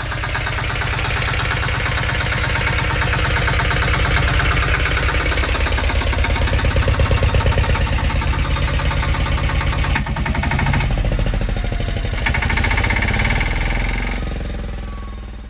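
Stationary diesel engine running steadily, its firing heard as a rapid, even knocking rhythm. The sound fades out near the end.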